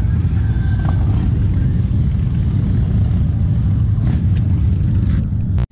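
Motorcycle engines running with a steady low rumble; the sound cuts out abruptly for a moment near the end.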